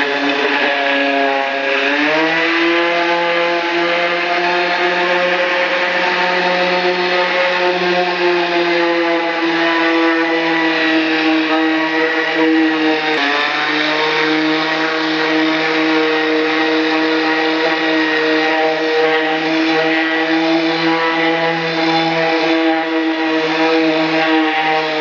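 Electric paint spray gun's motor running steadily while spraying primer, a loud buzzing hum. Its pitch rises slightly about two seconds in and dips briefly around the middle as the load changes.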